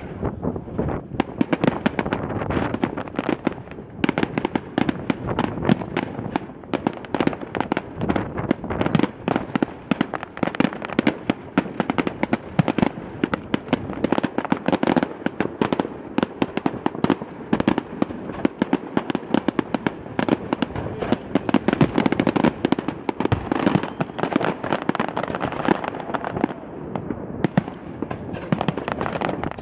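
Aerial fireworks going off in a dense, continuous barrage of bangs and crackles, many shots a second with no pause.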